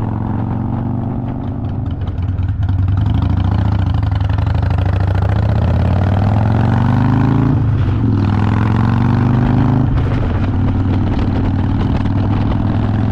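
Harley-Davidson motorcycle engine pulling away and accelerating. It gets louder about two seconds in with the engine note rising, dips at a gear change near the middle, rises again, then runs steadily at cruising speed.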